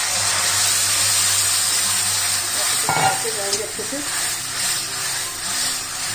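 Thin spiced yogurt mixture poured into hot oil tempered with mustard seeds and green chillies in a kadhai, sizzling loudly and hissing at once. It eases off slightly after about four seconds.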